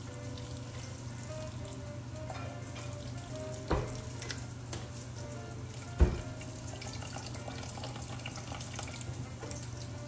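Kitchen tap running in a steady hissing stream into a stainless steel sink. Two sharp knocks come about two seconds apart, the second louder, as a small cup bumps against the sink.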